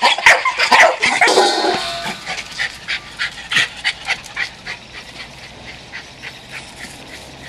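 A pack of Jack Russell terriers barking, many sharp barks overlapping at first, then thinning to single barks that grow fainter.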